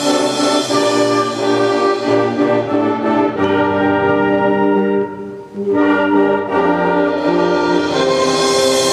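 Student concert band playing held brass chords. The sound dips briefly a little past halfway, then the band comes back in.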